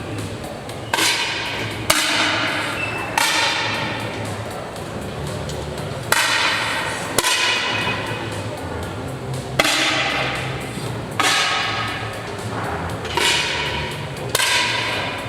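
Air rifle shots, about nine sharp cracks at irregular intervals, each followed by a ringing echo that dies away.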